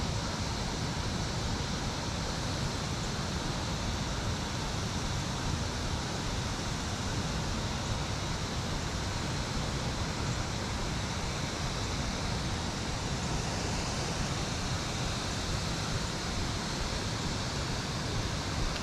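Steady rushing of river water spilling over and below a weir dam, an even unbroken roar with no separate events.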